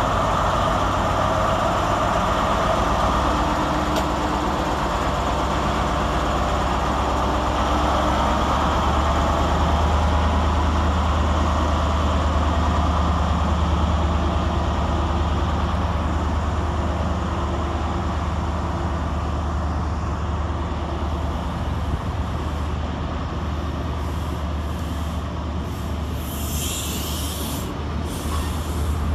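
Class 43 HST power cars' diesel engines drawing a train out of the station, a steady deep drone under the rumble of the coaches rolling past on the rails. A brief high hiss comes a couple of seconds before the end.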